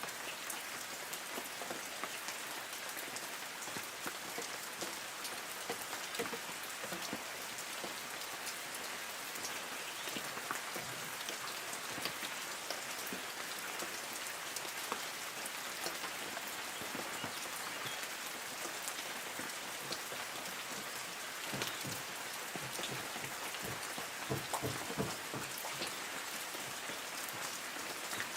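Light rain falling on forest trees: a steady hiss of rain with scattered individual drops pattering on leaves, the drops coming more often for a few seconds near the end.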